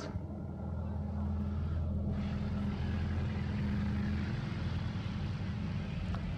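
A motor engine running steadily with a low hum, a little louder from about a second in.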